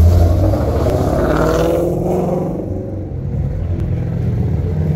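Sports car engines on a racetrack passing close at speed. The first is loudest at the start, its pitch rising as it accelerates, then fading about three seconds in as another car's engine builds.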